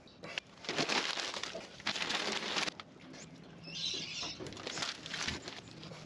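Rustling and scraping in several short bursts as a gloved hand works inside the opened swivel hub housing of a Toyota Land Cruiser's front axle.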